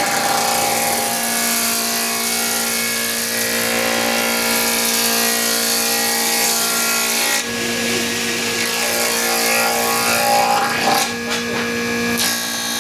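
Electric wood planer running with a steady motor hum while its blades shave timber, a continuous hissing cut. The cutting noise shifts about seven and a half seconds in and again near the end as the wood is fed through.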